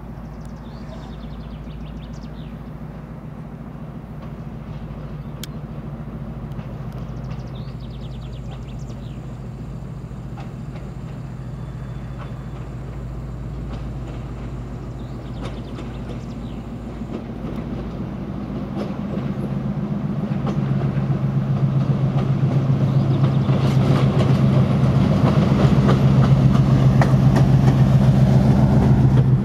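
Diesel locomotive engine running with a steady low drone as the locomotive approaches, growing much louder over the last ten seconds as it comes close and passes right below.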